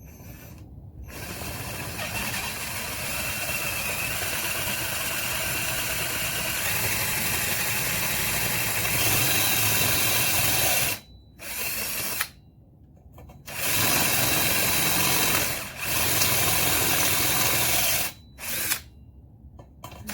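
Power drill boring out a bolt hole in a tube rail from the back side, enlarging it to size. It runs for about ten seconds, stops, then gives a short burst, two more long runs and a brief final burst near the end.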